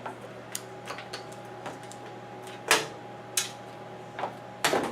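Scattered small plastic clicks and knocks as the old washer lid lock's wire connector is unplugged and handled, the loudest a little under three seconds in, about half a second later, and near the end.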